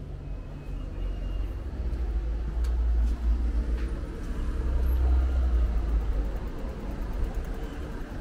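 Low rumble of passing road traffic on a street, swelling and easing off twice.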